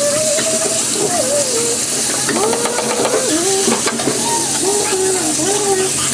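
Steady sizzling hiss of food cooking in a pan on the stove, with voices talking underneath.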